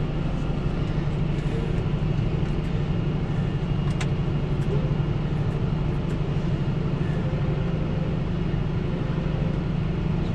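Fendt tractor engine running steadily, heard from inside the cab, with a single sharp click about four seconds in.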